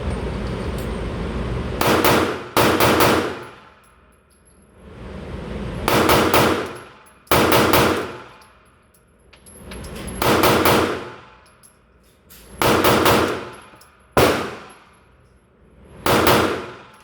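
Glock 23 pistol in .40 S&W firing about eight single shots, a quick pair first and then one every one to two seconds, each crack followed by a ringing tail.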